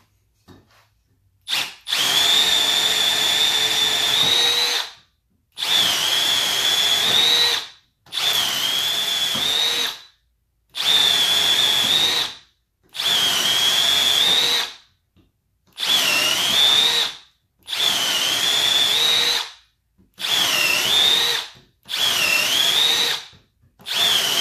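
Milwaukee M12 Fuel 2504-20 brushless hammer drill in drill mode, boring a 3/8-inch wood bit into a pine 2x4. After a brief trigger blip it runs in about ten bursts of two to three seconds with short pauses. Its high motor whine dips in pitch under load partway through the later bursts.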